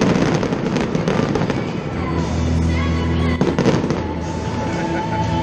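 Aerial fireworks going off, with sharp bangs at the start and again about three and a half seconds in, over music with sustained steady notes.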